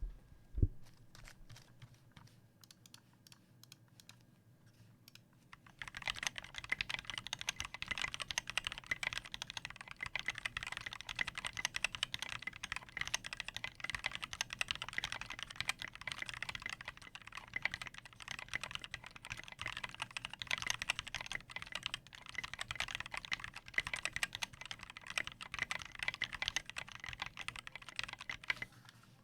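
Typing on a custom 60% mechanical keyboard with lubed and filmed Durock Linear L2 linear switches on TX 65 g springs, an aluminium plate in a Tofu case, and PBT doubleshot keycaps. There is a thump just after the start and a few scattered keystrokes, then steady, fast typing from about six seconds in until just before the end.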